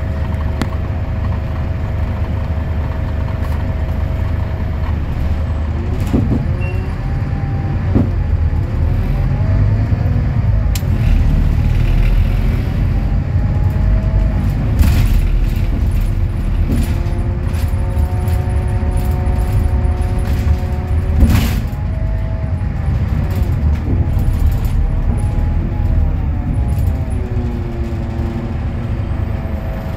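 Scania K320UA articulated bus heard from on board: its DC09 five-cylinder diesel and ZF EcoLife automatic drivetrain running with a heavy low rumble, the engine and driveline note repeatedly rising and then dropping back as the bus speeds up and slows, with steadier stretches between. Rattles and knocks from the body come through, the loudest a sharp clunk about two thirds of the way through.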